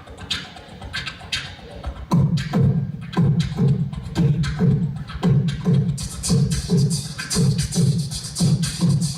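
A cappella music: beatboxed vocal percussion keeping a steady beat under a deep bass voice. It starts with sparse light clicks, the heavy low beat comes in about two seconds in, and brighter hi-hat-like sounds join about halfway through.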